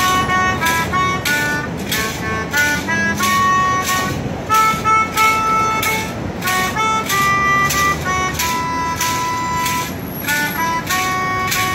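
Melodica playing a melody of held reedy notes, over an even beat of sharp percussive strokes about two to three times a second.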